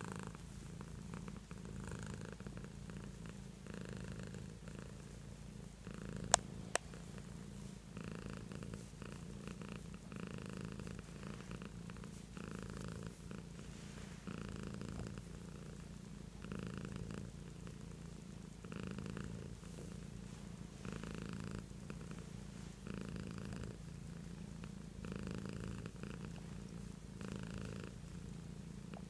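Domestic cat purring steadily while being petted, the purr swelling about every two seconds. Two sharp clicks about six seconds in.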